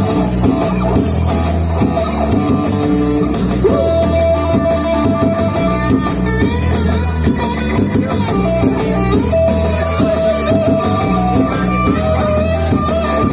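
Guitar-led rock music with held, sustained melody notes over a steady bass.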